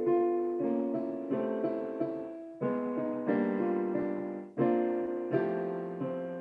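Piano playing a slow run of chords, each one struck and left to ring out, a new chord about every second.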